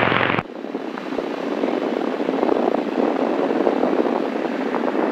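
Cessna 172 cabin noise on final approach: a steady rush of engine, propeller and wind, with a short burst of noise about half a second long at the start.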